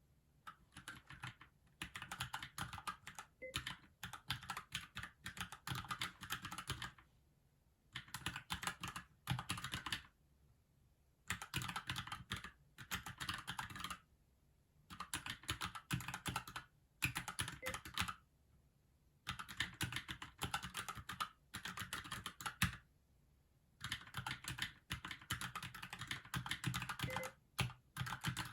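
Keychron K6 mechanical keyboard being typed on in quick runs of keystrokes, each a second or two long, broken by short pauses.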